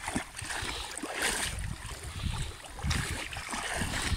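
Legs wading through shallow water, splashing and sloshing with each step, over a low rumble of wind on the microphone.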